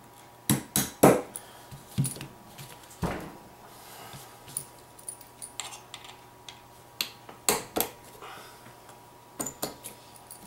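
Shotgun receiver, tools and a claw hammer being handled and set down on a rubber bench mat: scattered sharp metallic knocks and clicks. The loudest comes about a second in, and a few more come around the middle and near the end.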